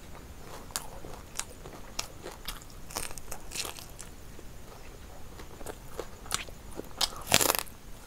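Close-miked biting and chewing of a fried chicken leg: a scatter of short crisp crunches and crackles, the loudest a longer crunch near the end.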